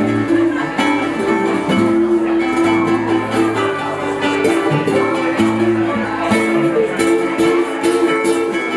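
Live acoustic band playing, with strummed acoustic guitar and ukulele over a steady rhythm.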